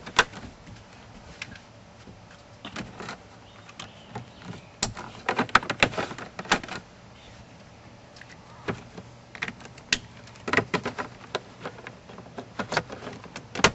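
Irregular plastic clicks and snaps as small dash switches and their wiring connectors are pushed back into the instrument panel trim of a 4th-gen Nissan Maxima, in scattered clusters.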